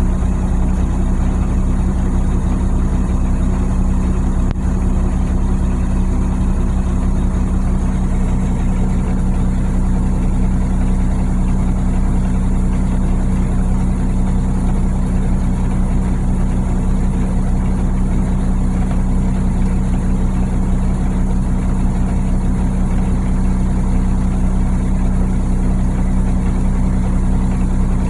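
Freightliner 112SD truck's diesel engine running steadily at the raised idle of a parked regen. Its firing has a beat that the owner suspects is a misfire but wonders may be normal during a regen.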